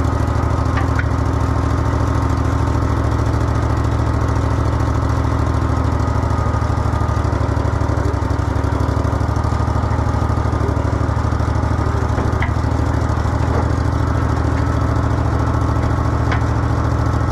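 Old skid steer's engine idling steadily, with a few faint clicks.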